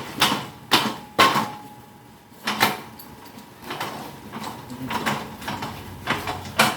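Hard knocks and clunks of a heavy photocopier being handled and shifted. Three come in quick succession at the start, another follows a little later, lighter taps run through the middle, and there is a loud one near the end.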